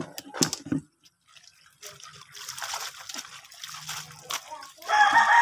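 Water from a garden hose trickling and splashing into a laundry basin while clothes are rinsed by hand, with a few splashy knocks in the first second. A loud, high-pitched call sounds near the end.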